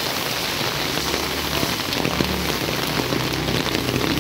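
Heavy rain falling steadily onto a flooded street, a dense hiss of drops on standing water. From about a second in, the low hum of a motorcycle engine rises beneath the rain as the bike rides closer through the water.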